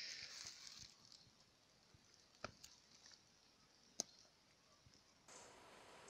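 Near silence: faint rustling in the first second, two soft clicks a second and a half apart, then a faint steady hiss near the end.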